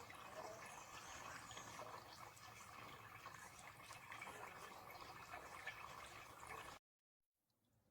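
Faint water splashing and trickling from a small solar-powered fountain pump's spray, cutting off abruptly near the end.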